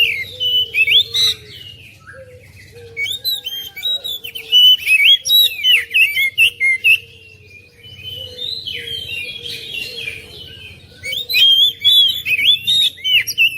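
Oriental magpie-robin (kacer) singing: bursts of fast, varied whistles and chirps in phrases, with short pauses between them.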